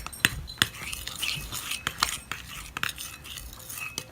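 A spoon stirring a glue and food-colouring mix in a container, clinking against its sides in irregular sharp taps with soft scraping between them.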